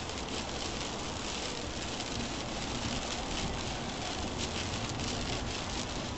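Rain hitting a car's windshield over steady tyre and road noise on a wet highway, heard from inside the car.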